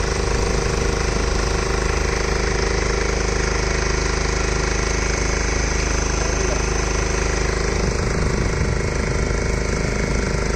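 Fishing boat's engine running steadily at a constant speed, with an even, knocking mechanical tone.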